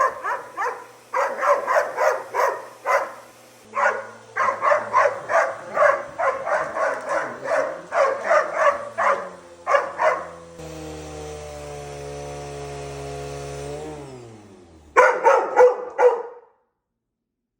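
Dalmatian barking in quick runs of sharp barks at a corded vacuum cleaner. About ten seconds in the barking stops and the vacuum's steady motor hum takes over. The hum falls in pitch as the motor winds down, and a last short run of barks follows.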